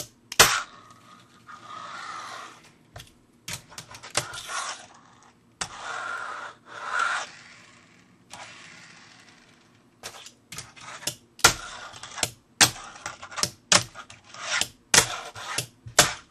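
Fingerboard riding on Flatface G6 bearing wheels: two stretches of wheels rolling and grinding along in the first half, then a quick run of sharp clacks of the board popping and landing.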